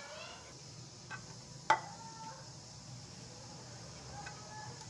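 Metal wire whisk beating a thick batter in a glass dish, with light clinks against the glass and one loud ringing clink a little under two seconds in.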